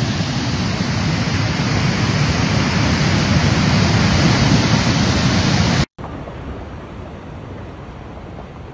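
Floodwater in a swollen, muddy mountain torrent rushing loudly and steadily, with heavy low rumble. It cuts off abruptly about six seconds in and gives way to a quieter, more distant rushing of water.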